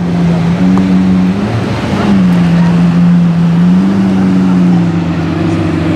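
Lamborghini Aventador's V12 engine running steadily at raised revs, its pitch shifting slightly up and back down a couple of times.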